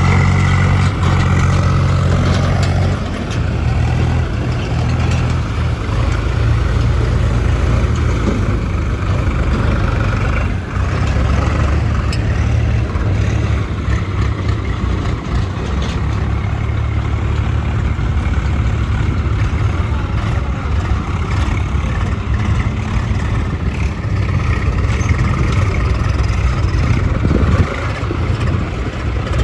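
Heavy diesel engine running steadily at working revs, with a brief loud knock near the end.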